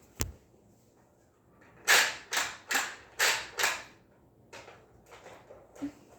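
Creaking, clacking plastic mechanism, likely a Nerf blaster being handled and primed: a sharp click right at the start, then five loud scraping strokes about 0.4 s apart, then a few fainter ones.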